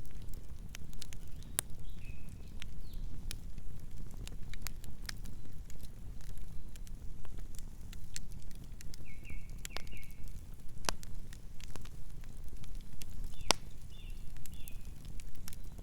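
Campfire burning: a steady low rumble of the flames under frequent sharp crackles and pops of burning wood, with one louder pop near the end. A few short, faint high squeaks come and go.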